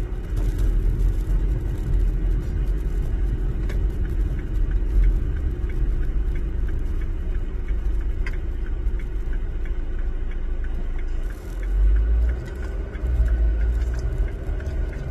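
Steady low rumble of a moving car heard from inside the cabin: engine and tyre road noise. It dips briefly about eleven seconds in, then swells again for a few seconds.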